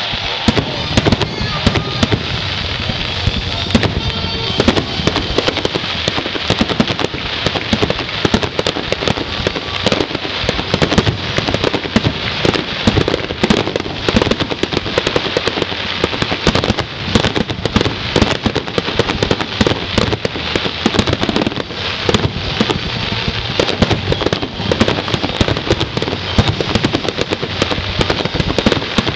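Fireworks grand finale: aerial shells going off in a dense, unbroken barrage, many bangs every second.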